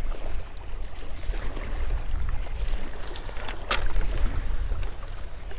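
Wind rumbling on the microphone over waves slapping against the jetty rocks. About two-thirds of the way through there is one sharp splash as a landing net scoops a small speckled trout out of the water.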